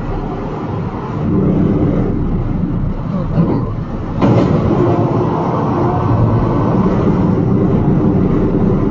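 Steady rumble of a semi truck's engine and road noise from inside the cab. About four seconds in comes a sudden crash as another tractor-trailer collides alongside, and the rumbling is louder after it.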